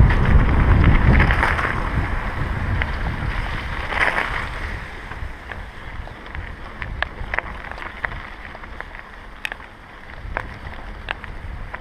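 Wind buffeting the microphone and mountain bike tyres running over a gravel dirt road on a fast descent. The wind rumble is heavy for the first few seconds, then eases, leaving sharp clicks and rattles from stones and the bike.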